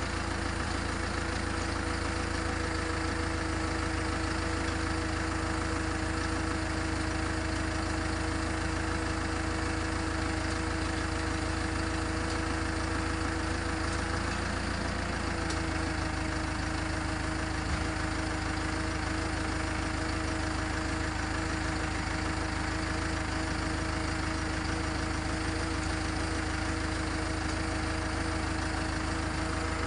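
Backhoe engine running steadily at idle, its pitch dipping briefly and resettling about halfway through.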